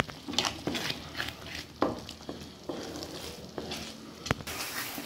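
Black spatula stirring a thick tomato-onion masala in a dark pan: a run of irregular scraping strokes over a low sizzle. There is a sharp tap about four seconds in, and the sizzle grows brighter near the end.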